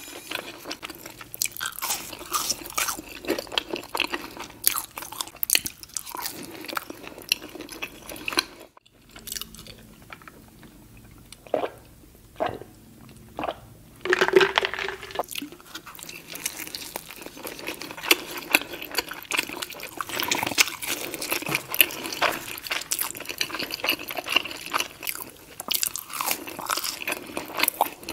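Close-miked mouth sounds of eating a breakfast burrito: wet chewing with many sharp clicks and crunches. About midway the chewing stops for a few seconds while a few gulps of a drink are swallowed, then chewing starts again.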